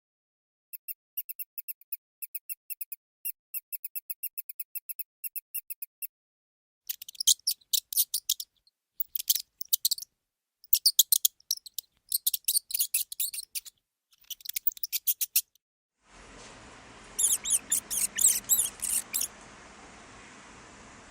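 Mice squeaking: first a quick, even run of thin high-pitched squeaks, then bunched, scratchier high squeaks in groups. About two-thirds of the way through, a steady hiss comes in under a few last squeak clusters.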